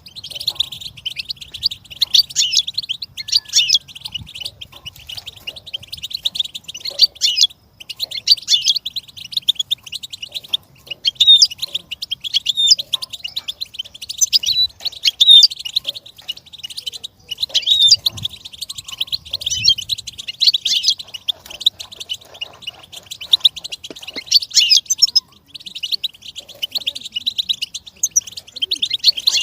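Goldfinch song: a continuous, fast twittering of rapid chirps and trills with only brief pauses.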